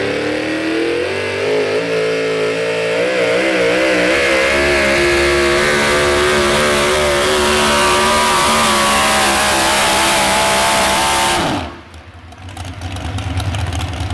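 Modified 4x4 pulling truck's engine at full throttle pulling the sled. It runs at a steady high pitch after wavering for a couple of seconds early in the pull, then cuts off sharply about eleven and a half seconds in as the pull ends. A lower rumble rises in the last two seconds.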